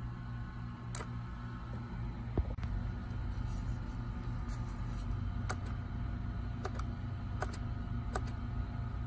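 Short clicks of the instrument-cluster button in a 2017 Mini Cooper being pressed to scroll through the service reset menu, about seven clicks spread unevenly, over a steady low hum in the car cabin. One louder knock comes about two and a half seconds in.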